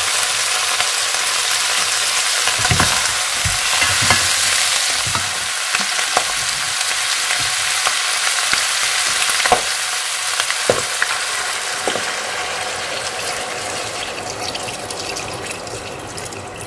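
Pre-boiled pork chunks sizzling in hot oil with sautéed onion and garlic, with a few knocks as they are stirred in the pot. The sizzle slowly dies down toward the end.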